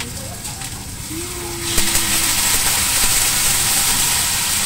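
Chicken frying in a hot wok. About two seconds in, the sizzle jumps sharply louder as cooking wine is poured into the hot pan, then stays loud.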